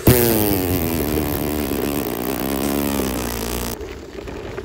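Motorcycle engine running, its pitch sinking slowly. It starts suddenly and cuts off abruptly a little before the four-second mark.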